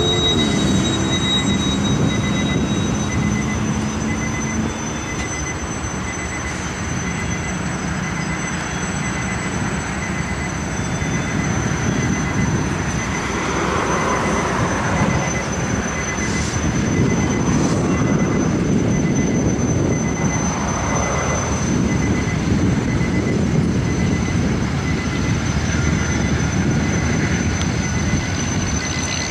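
Freight train with EMD diesel locomotives rolling past: the engines run and steel wheels rumble on the rails in a steady, continuous noise.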